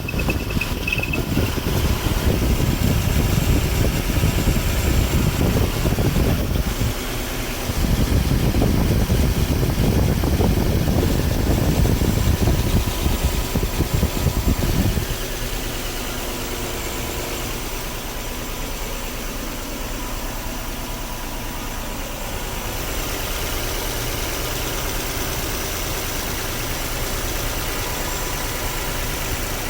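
Nissan Cedric engine running at idle. It sounds louder and rougher for about the first fifteen seconds, then settles to a quieter, steady run.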